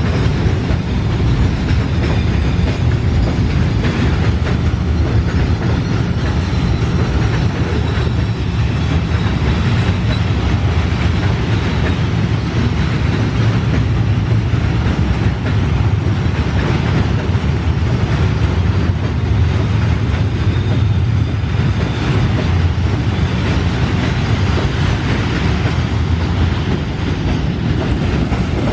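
Long freight train of flatcars rolling past close by: a steady, loud rumble of steel wheels on the rails.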